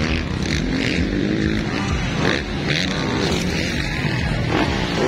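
Motocross dirt bike engine revving hard, its pitch rising and falling as the rider works the throttle over the track's jumps.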